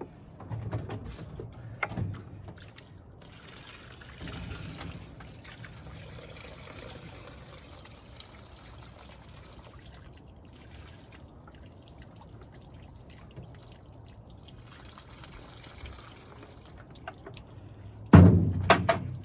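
Water poured and trickling over the stump grinder's engine around the muffler, with a few knocks early and a loud thump near the end.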